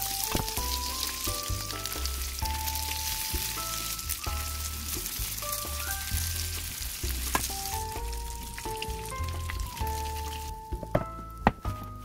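Egg-battered, shrimp-topped zucchini rounds frying in oil in a pan, with a steady sizzle. The sizzle cuts off near the end, followed by a few sharp clicks.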